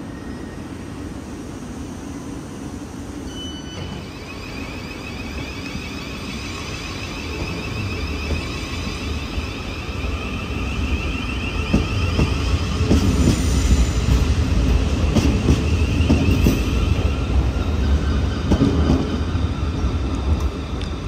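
Thameslink Class 700 electric multiple unit pulling away, its traction equipment giving a UFO-like whine that slowly rises in pitch as it gathers speed. It grows louder with a low rumble and clicking of wheels over rail joints in the second half.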